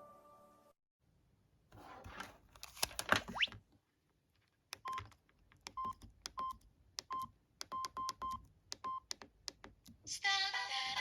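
Samsung SGH-E350 mobile phone's keypad beeping as its keys are pressed: about a dozen short beeps over four seconds, after a brief rustling noise with a rising squeak about two seconds in. A new ringtone with synthetic singing starts playing from the phone's speaker near the end.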